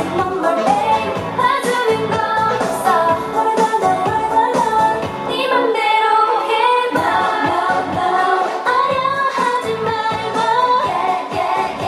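K-pop dance-pop song: female vocals over a backing track with a steady beat.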